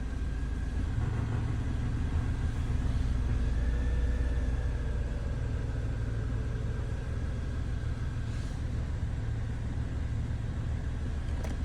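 Ford Mondeo Mk4's 2.3-litre petrol four-cylinder engine idling steadily with the air conditioning just switched on, getting a little louder about a second in as the compressor load comes on. With the AC on the engine rattles, a knock the owner places between cylinders one and two and is sure is not the AC compressor.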